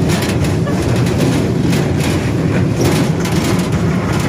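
Steady rumbling and rattling of a small open-sided passenger ride vehicle in motion, heard from on board.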